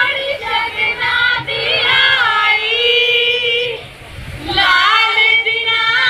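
A group of women singing a Punjabi folk song together, with long held notes, amplified over a stage PA. The singing breaks off briefly about four seconds in and then starts again.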